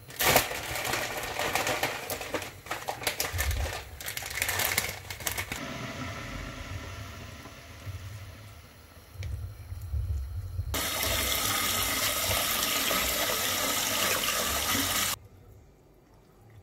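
Rice vermicelli boiling in a pot of water and stirred with chopsticks: bubbling and irregular clicks at first, then a softer hiss. Near the end comes a loud, steady rush of water that lasts about four seconds and stops abruptly.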